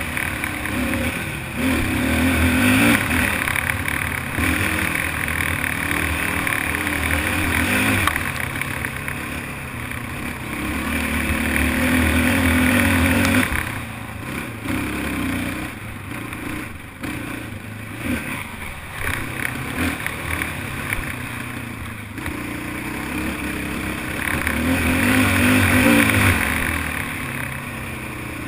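Racing ATV (quad) engine revving hard and easing off in surges of several seconds each, as under throttle over rough off-road terrain.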